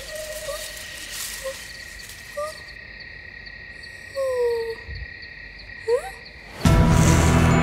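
Night forest ambience of insects: a steady high drone with regular cricket-like ticking, and a few short sliding animal calls, the longest a falling call about four seconds in. Near the end a loud, low, steady musical drone cuts in suddenly.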